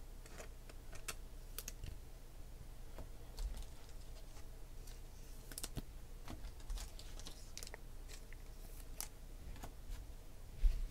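Trading cards (Panini Select football cards) being handled and sorted onto piles on a table: light, scattered clicks and taps of card on card, with one louder knock near the end.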